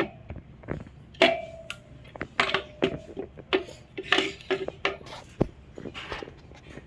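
Metal parts clinking and knocking irregularly as they are handled, a dozen or so sharp knocks, several with a short ringing tone.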